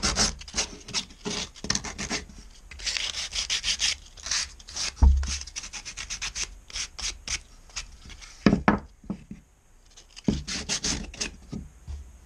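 Hand sanding a wooden sleigh: sandpaper rubbing back and forth on the wood in quick, even strokes, about two or three a second. There is one low knock about five seconds in and a short pause near the end.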